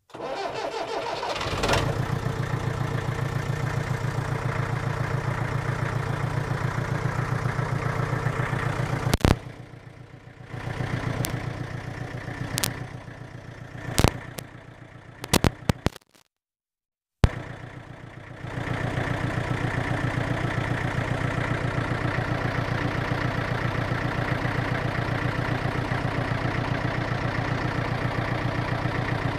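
Saviem TL22 tractor's diesel engine started from its dash button, catching almost at once and settling into a steady idle. About nine seconds in the sound is broken by several sharp clicks and drop-outs, with a moment of complete silence, then the engine idles steadily again.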